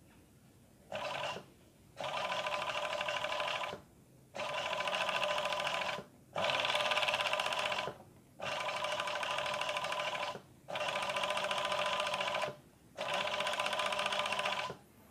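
Industrial overlock sewing machine stitching a picot edge in stop-start runs. There is a brief burst about a second in, then six runs of about two seconds each, with short stops between them as the fabric is guided.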